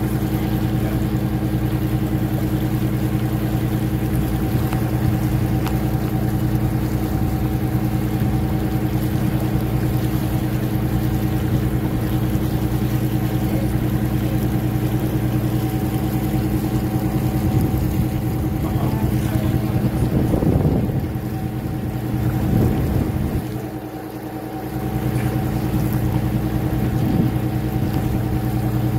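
Tour boat's engine running steadily under way, a constant drone with a steady hum, dipping briefly about three-quarters of the way through.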